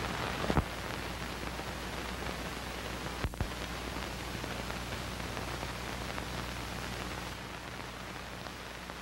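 Steady hiss and crackle of an old film soundtrack over a low hum, with a couple of brief clicks, about half a second and three seconds in.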